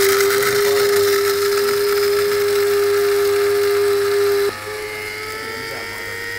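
A small electric motor spins up and runs steadily with a strong hum. About four and a half seconds in, its level drops and its pitch steps up, then keeps creeping higher.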